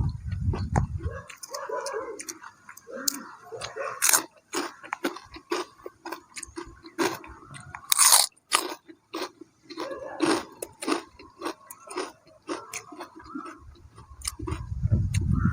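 A person chewing and biting crunchy food close to the microphone, with many sharp crunches and wet mouth sounds. Wind rumbles on the microphone at the start and again near the end.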